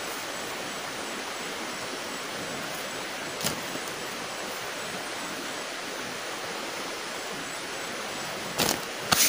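Steady rushing outdoor background noise, with a light tap about three and a half seconds in as a roasted banana is set down on leaves, and two sharper knocks near the end.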